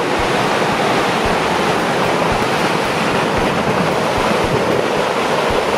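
Steady, loud rush of fast-flowing floodwater.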